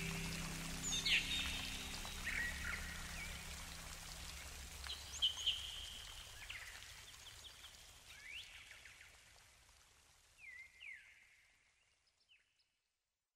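Small birds chirping and calling over a steady rushing background, with a low hum in the first couple of seconds. Everything fades gradually and is gone near the end.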